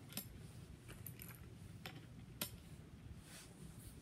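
Faint metallic clicks and taps, about four of them spread over a few seconds, from a side-by-side shotgun with 45 Colt barrel inserts being loaded and handled before firing.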